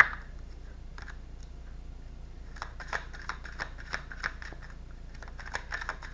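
Tarot cards being shuffled and handled: one sharp tap at the start, then from about two and a half seconds in a run of quick, irregular light clicks and slaps of card on card.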